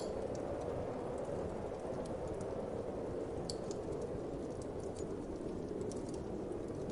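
Wood fire crackling, with irregular sharp pops and snaps over a steady low whoosh of wind.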